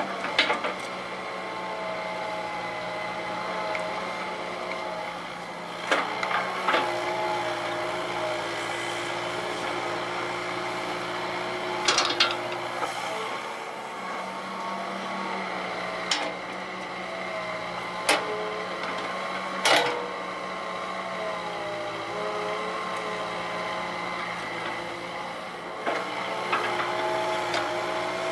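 Hitachi EX120 hydraulic excavator's diesel engine running steadily under working load, its pitch dipping and recovering several times as the hydraulics work the boom and bucket. Sharp clanks of the steel bucket come every few seconds as it digs and dumps soil.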